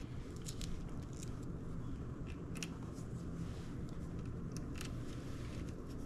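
Scattered light metal clicks and taps as the parts of a bolt-on line tap valve are handled and fitted around a copper refrigerant line, over a steady low hum.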